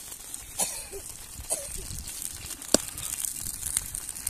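Wood fire crackling under a frying pan, with scattered sharp pops, the loudest about two-thirds of the way through.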